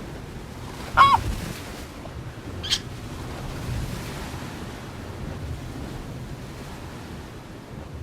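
A bird gives one loud, harsh call about a second in, then a short higher call near three seconds, over a steady rush of surf and wind.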